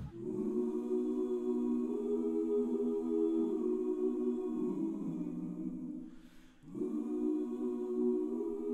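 Background music: a choir singing long held chords. The phrase fades out a little past the middle, and a new held chord begins a moment later.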